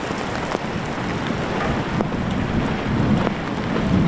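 Heavy rain falling in a downpour, an even hiss of drops hitting the ground and the microphone, with a low rumble building in the second half.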